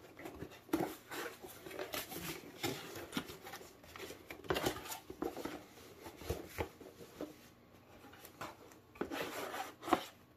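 Cardboard shipping box being opened by hand: irregular scraping, rubbing and rustling of cardboard as the box is worked open and its flaps folded back, with one louder knock near the end.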